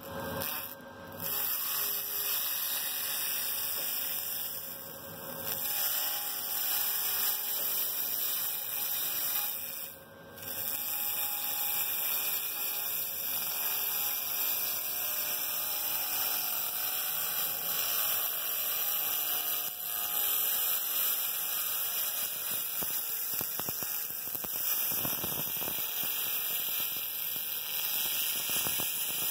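Handheld laser cleaner ablating charred residue off a metal baking tray, making a steady high-pitched buzzing hiss. It breaks off briefly about a second in, around five seconds and around ten seconds, when the beam stops.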